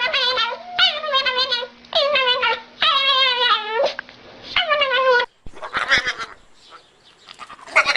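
A dog whining in long, wavering, high-pitched cries, about five in a row. About five seconds in the sound cuts off abruptly and fainter, scattered short sounds follow, with a louder call near the end.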